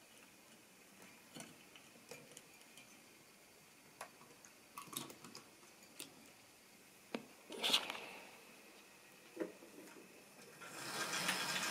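Scattered light clicks and knocks, with a louder clatter a little before 8 seconds in; about 11 seconds in a steady rushing hiss starts up.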